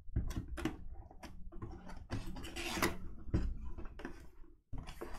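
Cardboard box of a Tristar mini-helmet being handled and opened by hand: an irregular string of short scrapes, taps and rubs of cardboard.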